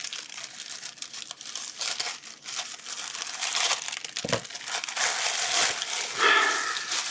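Plastic mailing bags crinkling and rustling as they are handled and pulled open.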